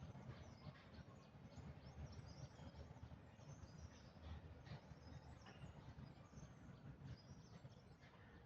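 Faint outdoor ambience: many small birds chirping in quick, high notes over a low, steady rumble.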